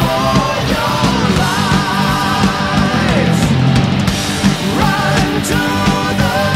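Heavy rock music with a wavering melody line over a dense, steady low end.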